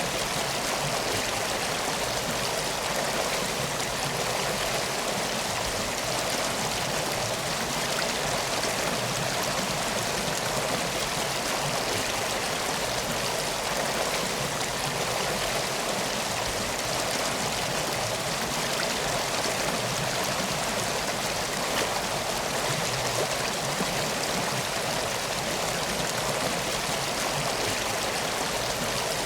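River water flowing steadily, an even rushing hiss that does not change.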